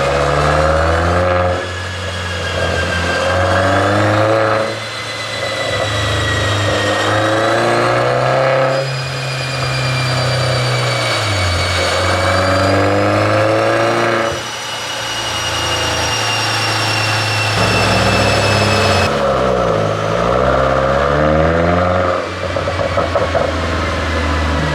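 Mercedes-Benz W213 E350 4Matic engine and exhaust being revved repeatedly, the pitch climbing and falling with each blip of the throttle. Near the end, a quick run of crackles comes through the exhaust as the revs drop, the pops of a pop-and-crackle tune.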